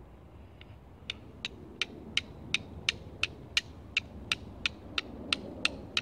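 Ferrocerium rod (fire steel) struck again and again with a scraper to throw sparks onto tinder and light a campfire: a quick, even run of sharp scrapes, about three a second, starting faint and firming up about a second in.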